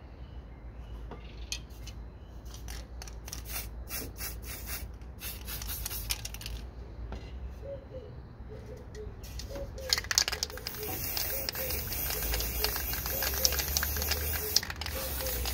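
Aerosol spray-paint cans spraying onto a board: a run of short spray bursts, then from about ten seconds in a continuous spraying hiss.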